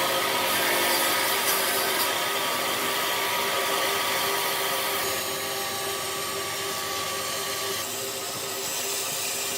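A power tool running steadily as it works wood, a steady motor whine over the rasp of the cut, with a change in tone about halfway through and again near the end.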